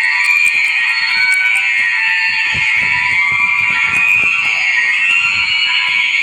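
Digitally multiplied and distorted sneeze turned into a loud, shrill, continuous alarm-like screech that slowly wavers up and down in pitch.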